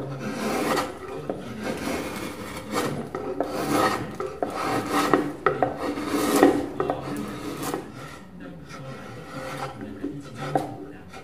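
A rasp pushed in repeated short strokes across a walnut chair seat, shaping the carved hollow of the seat; the scraping strokes come roughly every second and grow quieter after about eight seconds.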